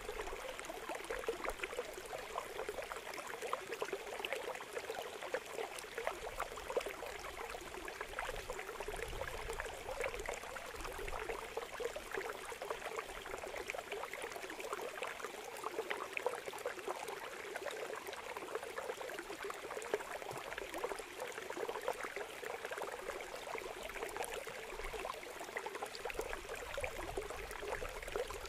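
A steady trickling, crackling noise like running water, unchanged throughout.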